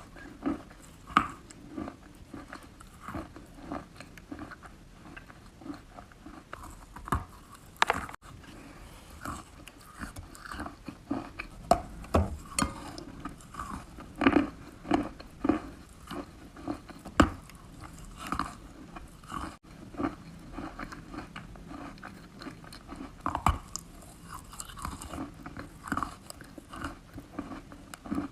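Close-up chewing and crunching of wet chalk: irregular soft crunches with an occasional sharper bite.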